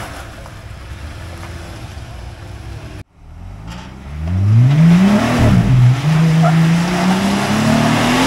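Off-road vehicle engine running quietly, then, after an abrupt cut about three seconds in, revving up loudly with a rising pitch, dipping briefly and holding at high revs while climbing.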